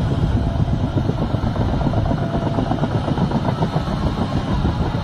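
Heavy machinery engine running steadily, a continuous low rumble with a rough clatter.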